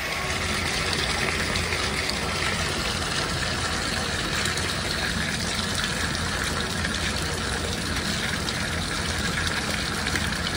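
Water running steadily from a bathtub tap into the tub.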